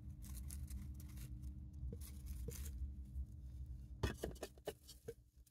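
Dwarf hamster rooting through dry shredded bedding: soft crinkly rustling in short bursts, with a quick cluster of sharper crackles about four seconds in.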